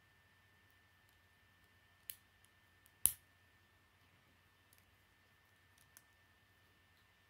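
Plastic Lego bricks snapping together under the fingers: a few short sharp clicks, the loudest about three seconds in, with smaller ticks of pieces being handled between them.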